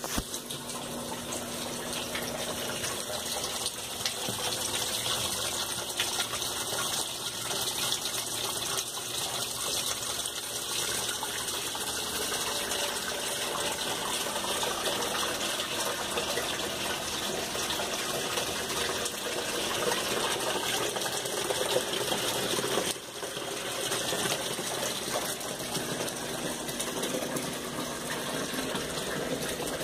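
Water rushing steadily in a washing machine, with a short dip about 23 seconds in.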